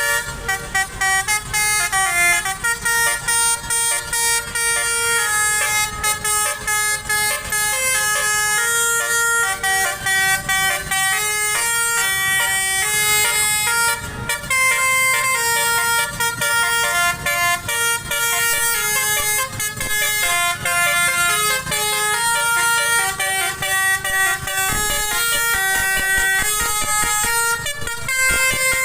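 Bus telolet air horn, a Basuri multi-trumpet horn with roof-mounted trumpets, playing a tune of quickly changing held notes, with short clicks as the notes switch.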